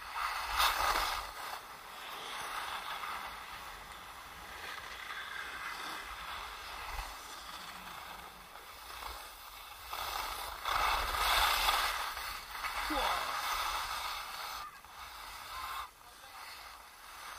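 Skis sliding and scraping over packed snow on a downhill run, swelling louder about a second in and again from about ten to twelve seconds in.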